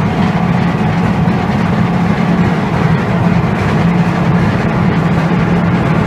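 A 32 by 24 inch hammer mill for shredding scrap electronics, running: loud, steady machine noise with a strong low hum.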